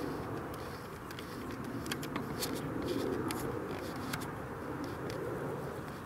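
Steady low rumbling background noise that swells and fades slowly, with scattered faint clicks over it.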